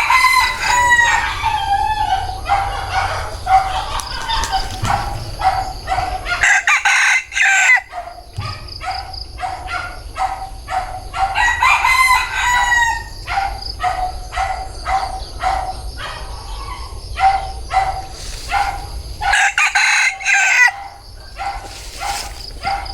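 Rooster crowing, a long call falling in pitch at the start and again about halfway through, with chickens clucking in quick short calls between the crows.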